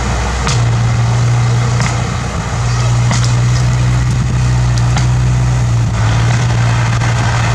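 Bulldozer's diesel engine running steadily with a deep hum, with a few sharp knocks or cracks over it.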